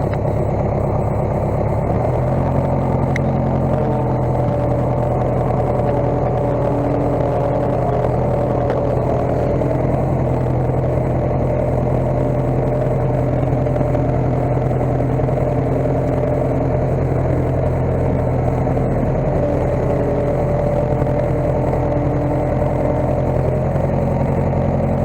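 Case skid steer engine running steadily, its speed stepping up about two seconds in and then holding.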